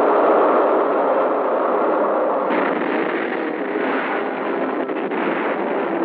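Rocket motors firing at launch: a continuous rushing roar of exhaust. The roar shifts abruptly about two and a half seconds in, and faint musical tones begin to come in under it near the end.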